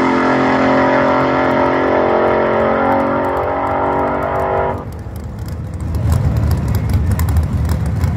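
Front-engine dragster's engine held at full throttle, its pitch fairly steady as it pulls away down the strip, then cutting off sharply a little over halfway through as the driver lifts at the end of the run. A low rumble takes over for the last few seconds.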